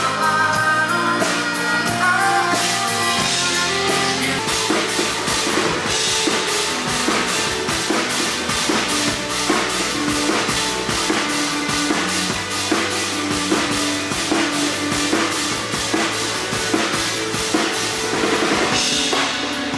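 Band playing live: a drum kit keeps a steady beat under bass guitar and other instruments.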